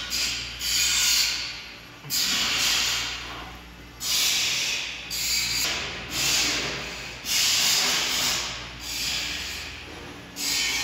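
A person breathing hard close to the microphone while straining: a hissing breath about once a second, each starting sharply and fading, over a faint steady low hum.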